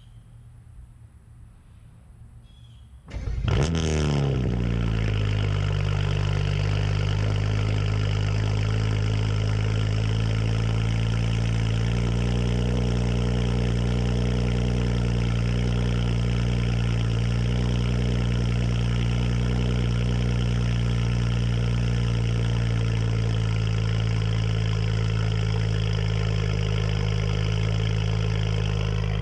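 BMW N54 twin-turbo inline-six in an E90 335i starting on its newly fitted starter: quiet at first, then it cranks and catches about three seconds in, flares up and drops back, and settles into a steady idle.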